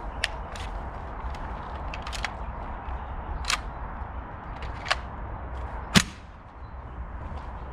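Sharp metallic clicks and clacks from a WE MP7 gas-blowback airsoft gun being handled and cocked, about six of them spread out, the loudest about six seconds in. A steady rumble of wind on the microphone runs underneath.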